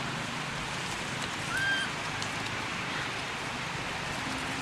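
Outdoor forest ambience: a steady hiss with a few faint clicks, and one short, high, clear call, rising and then held, about a second and a half in.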